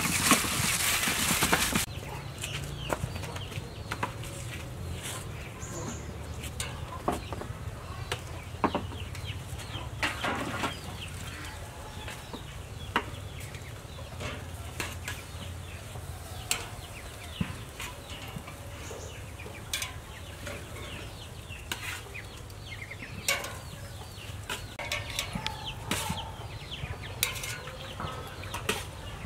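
Chickens clucking, over scattered clinks and taps of tongs, tray and meat on a metal grill grate. The first two seconds are a loud rush of noise.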